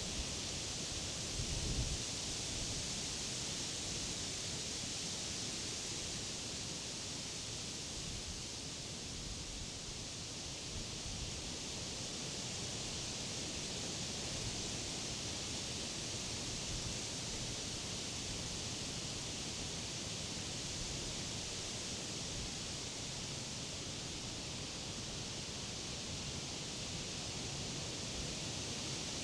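Wind blowing through leafy trees and grass: a steady rustling hiss of leaves that eases slightly and then builds again. A brief low rumble of wind comes about two seconds in.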